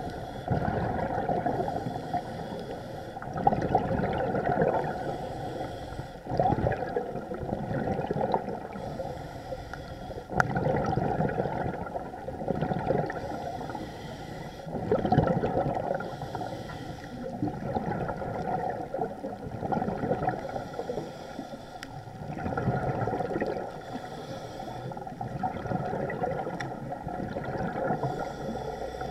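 Underwater sound of a diver breathing, with swells of bubbling and gurgling about every two to three seconds.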